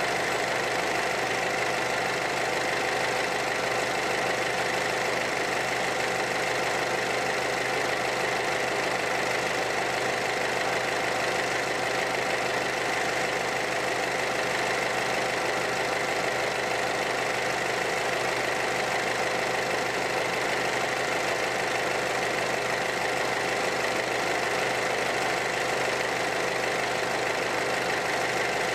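Small Yanmar diesel engine on a concrete mixer running at a steady idle, with no change in speed.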